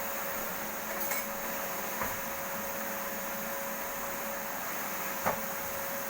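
Vacuum cleaner running steadily with a constant whine, with a few light knocks as it bumps or is moved, the loudest about five seconds in.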